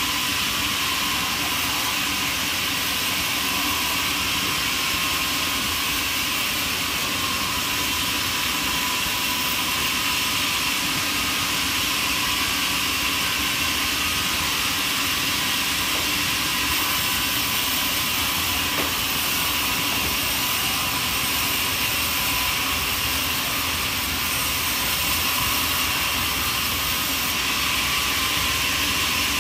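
A steady, unchanging rushing machine noise with a hiss to it and no clear pitch or rhythm.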